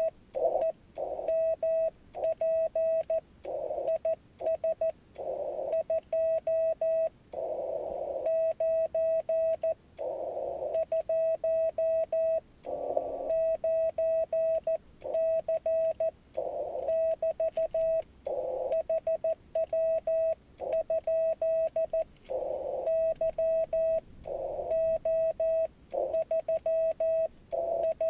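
Morse code (CW) from a Yaesu FT-817D transceiver's speaker: a steady tone keyed on and off in slow dots and dashes. Between the elements there are patches of band noise, heard through the narrow CW filter.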